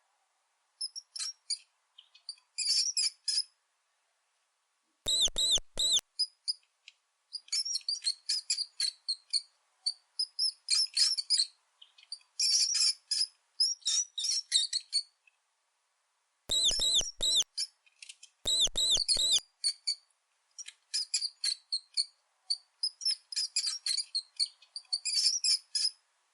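Mouse squeaking: bursts of rapid, very high-pitched chirps and squeaks. A few louder, fuller squeaks come about five seconds in and twice more past the middle.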